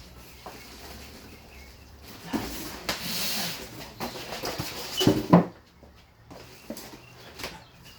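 Cardboard shipping box being handled and opened: scraping and rustling as cardboard slides against cardboard, with several knocks and a loud thump about five seconds in.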